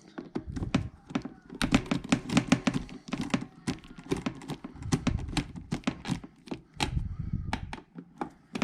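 Screwdriver loosening the two top screws on an iMac hard drive bracket: a dense run of small rapid clicks and taps, with light knocks.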